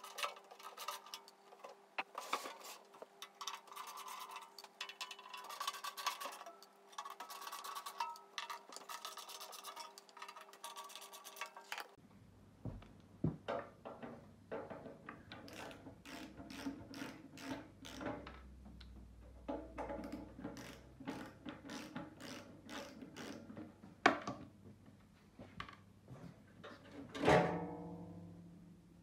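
Hands and a tool working on the sheet-metal casing of a transformer welding machine, making a run of small metallic clicks and scrapes as screws are taken out. Near the end come two louder knocks, the second ringing like sheet metal, as the casing is lifted off the transformer.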